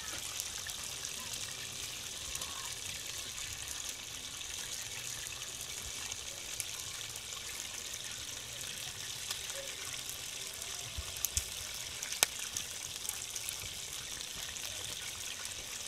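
Steady hiss of a pot of greens steaming and simmering, with a couple of sharp clicks about eleven and twelve seconds in.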